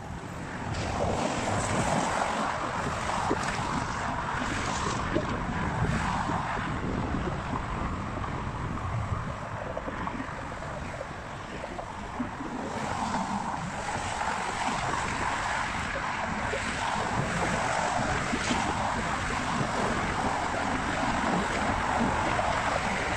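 Wind buffeting the microphone over the steady rush of car traffic passing on the adjacent roadway.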